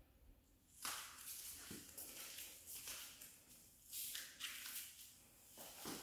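Faint footsteps and rustling from someone walking through an empty room on a hardwood floor while carrying the camera, a soft shuffle about once a second after a near-silent first second.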